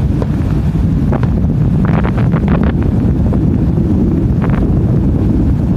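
Wind buffeting a smartphone microphone, a steady loud rumble, with a cluster of short crackles about two seconds in and another brief one a little later.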